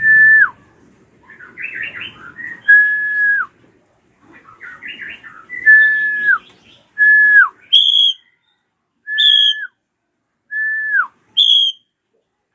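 A drongo (srigunting krantil) calling: bursts of chattering notes, each followed by a clear whistle held level and then dropping sharply in pitch, repeated every few seconds. In the second half, short higher whistles alternate with the falling ones.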